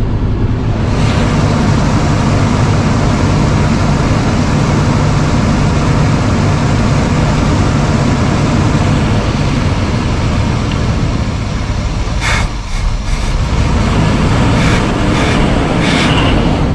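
An old truck's engine running steadily, with a few sharp knocks near the end.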